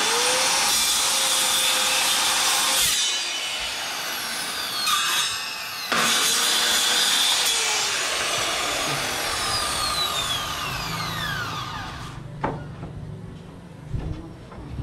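Handheld electric circular saw cutting small wooden blocks: it runs for about three seconds and winds down, then is started again about halfway through and coasts down with a falling whine. A few light knocks of wood follow near the end.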